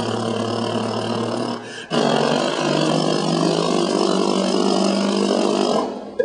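A man imitating a car engine with his voice: two long, buzzing engine sounds with a short break about two seconds in, the second slightly higher in pitch, cutting off just before the end.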